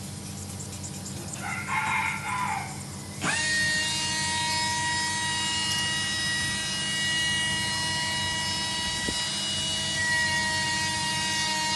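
A rooster crows once, then about three seconds in a steady high-pitched machine whine starts abruptly, rising briefly in pitch as it comes up to speed, and then runs on evenly: a small electric motor.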